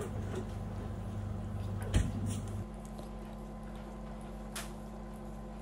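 A low steady hum with a single sharp knock about two seconds in, followed by a lighter click; the lowest part of the hum drops away soon after, and there is a faint tap near the end.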